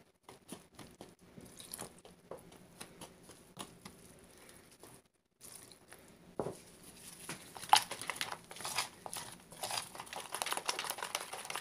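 Metal spoon stirring gram-flour batter in a ceramic bowl: quick repeated scrapes and clicks of the spoon against the bowl, with plastic gloves crinkling. The stirring gets louder and busier about six seconds in, as water is poured into the flour.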